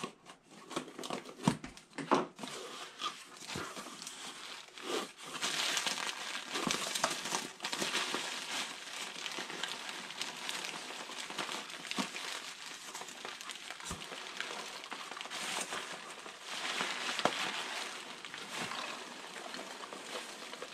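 Cardboard box being opened: a blade slits the packing tape and the flaps are pulled back, with sharp scrapes and clicks. From about five seconds in comes continuous crinkling and rustling of plastic bubble wrap and foam packing peanuts as the wrapped contents are lifted out.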